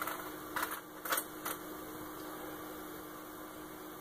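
A few light clicks of small metal parts being handled, in the first second and a half, over a steady faint hum. The parts are brass snap pieces being picked out and swapped.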